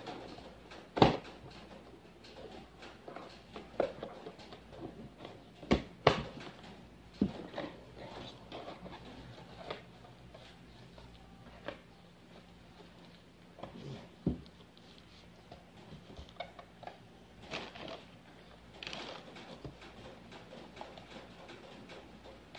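Cardboard box and packaging being handled while headphones are unboxed: scattered sharp knocks and taps, the loudest about a second in and twice around six seconds in, with softer handling and rustling later.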